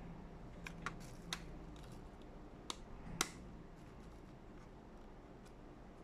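Scattered light clicks and taps of small parts being handled on an opened laptop, about five in the first three and a half seconds, the sharpest a little after three seconds.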